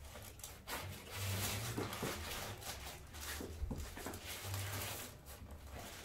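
Cloth rustling and rubbing as hands work a patient's head and neck on a padded chiropractic table, with a brief knock about three and a half seconds in.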